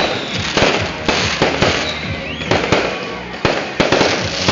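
Aerial fireworks going off, about ten sharp bangs in quick, uneven succession.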